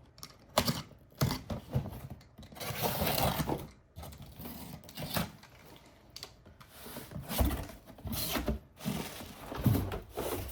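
Handling and unpacking of purchased items: a run of irregular clicks and knocks with rustling of packaging, the longest rustle about three seconds in.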